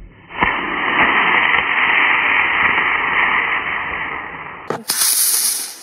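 Estes Viking model rocket lifting off on an A3-4 motor: a sharp pop about half a second in, then a steady rushing hiss that slowly fades over about four seconds.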